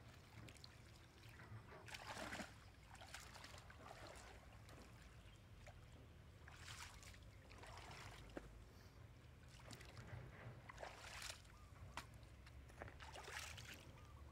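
Faint, irregular splashing and sloshing of shallow water, in short bursts every second or two.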